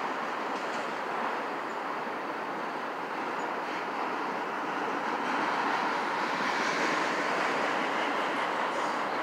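Freight cars rolling past on steel rails: steady wheel-on-rail noise from autorack and tank cars, growing a little louder about halfway through.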